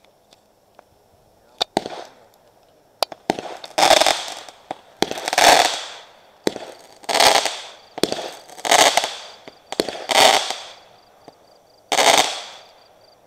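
Consumer aerial fireworks going off in a volley: a few sharp launch pops, then six loud bangs about a second and a half apart, each trailing off over about a second.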